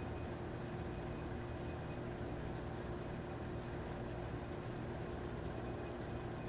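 Steady low hum and hiss of background noise, with a faint constant tone over it.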